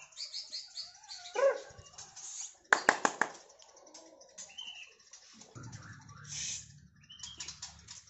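Caged white-rumped shamas (murai batu) calling: scattered chirps and short whistled notes, one rising glide a second and a half in, and a loud burst of sharp chattering notes about three seconds in.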